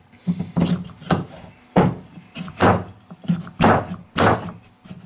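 Hammer blows on a stuck part of a ride-on lawn mower's rear axle (transaxle), knocking it to drive it out: about eight sharp, irregularly spaced strikes.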